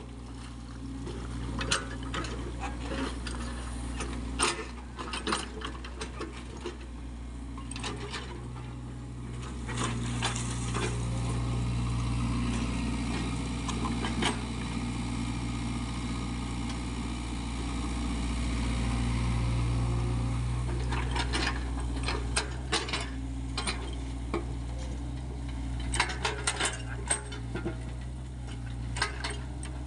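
SANY SY55C mini excavator's diesel engine running under hydraulic load, its note swelling twice as it works harder. Frequent metallic clanks and knocks come from the machine working in wet mud.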